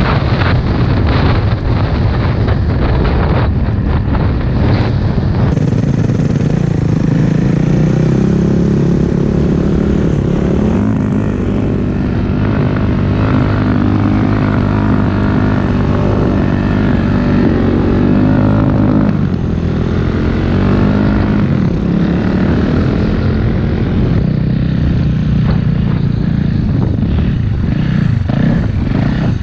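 A 450cc four-stroke dirt bike engine running under load, its pitch rising and falling as the throttle changes.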